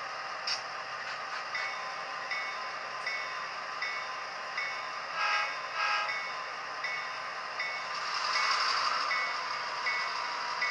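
HO-scale EMD GP38 model's Soundtraxx Tsunami sound decoder playing diesel locomotive sounds through its small speaker: a steady engine idle, with the bell starting about a second and a half in and ringing evenly, about one strike every three-quarters of a second. Two short horn toots about half a second apart come around the middle, and the sound swells louder for a second or so near the end.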